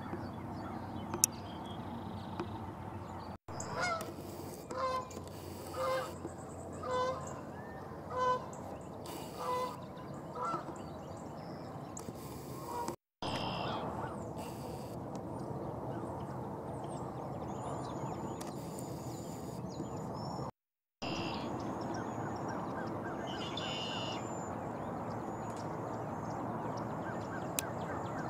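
Geese honking: a series of about eight short calls, roughly one a second, that ends about ten seconds in. After that, steady outdoor background noise with a few faint, high bird chirps.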